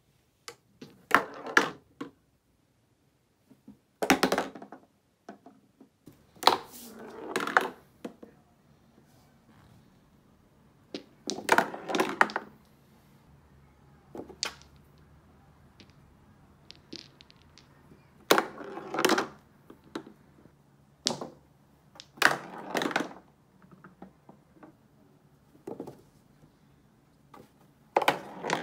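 Small balls on a tabletop mini pool table clacking together and knocking against the rails as a cat bats them with its paw, in about nine short bursts with pauses between.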